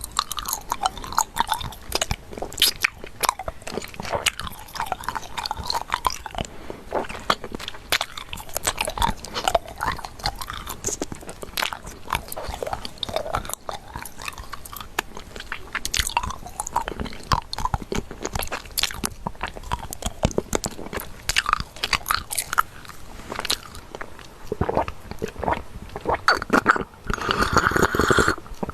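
Close-miked crunching: a dense, irregular run of crisp crackles and snaps, several a second, with a louder sustained stretch of about a second and a half near the end.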